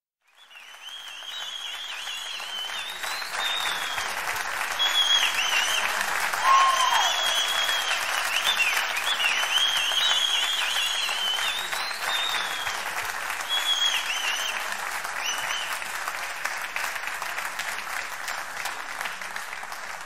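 A crowd applauding, with shrill wavering cries rising and falling above the clapping. It fades in during the first second and grows quieter toward the end.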